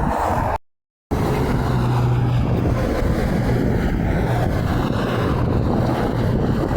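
Steady roar of highway traffic with a low engine drone and wind buffeting the microphone; the sound cuts out completely for about half a second near the start.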